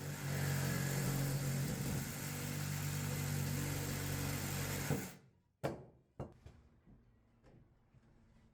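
A power tool motor running steadily under load for about five seconds, then stopping suddenly, followed by a sharp click and a few faint knocks.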